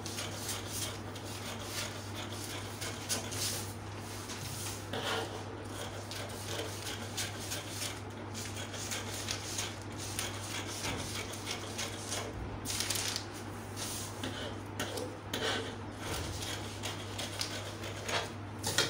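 Scissors snipping through paper pattern sheets, with crisp paper crackling and rustling as the sheets are handled, irregular short crunches over a steady low hum.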